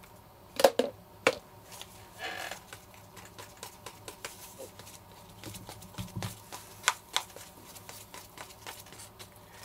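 Wooden stirring stick mixing thickened epoxy resin in a plastic cup: many small irregular ticks and scrapes of the stick against the cup. A few sharper knocks come about a second in.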